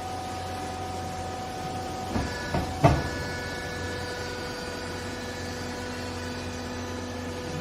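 Hydraulic baler's motor and pump running with a steady hum and whine. About two seconds in come three metal clanks, the last the loudest, after which the machine's whine shifts to a different pitch.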